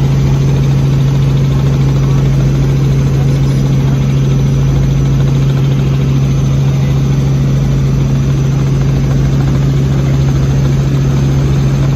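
Helicopter in flight, heard from inside the cabin: a loud, steady engine and rotor drone with a strong constant low hum.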